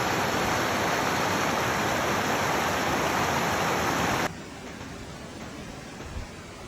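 Loud, steady rushing noise that cuts off abruptly about four seconds in, leaving a much quieter hiss with one faint thump near the end.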